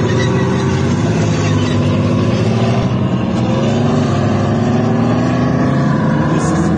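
Heavy armored vehicle engine running under way: a loud, steady drone whose pitch shifts slightly about midway.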